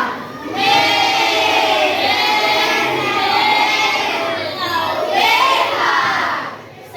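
A group of children's voices imitating animal calls together: one long drawn-out call, then a second call that rises and falls in pitch about five seconds in.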